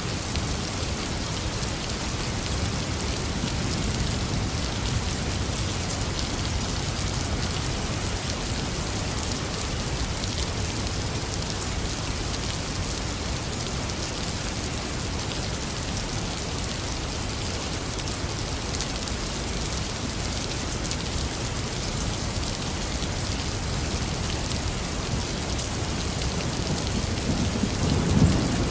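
Heavy rain pouring steadily, with a low rumble of thunder beneath it; the thunder swells and grows louder near the end.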